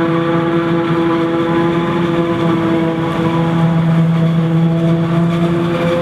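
Claas Jaguar 950 forage harvester chopping maize, with a John Deere tractor and silage trailer running alongside: a steady machinery and engine drone with a constant even-pitched hum.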